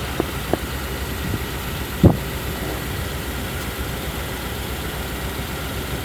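Car engine idling steadily, with two light clicks near the start and one louder thump about two seconds in.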